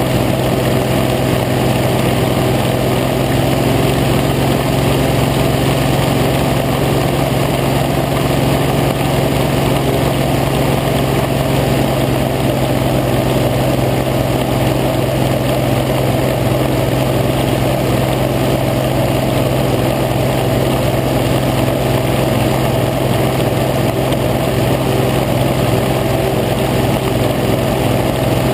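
Hovercraft engine and fan running steadily at cruising speed, a loud, even engine note that holds without change.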